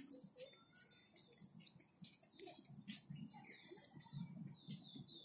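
Small birds chirping and twittering faintly: many short, high calls throughout. A low, indistinct murmur joins in during the second half.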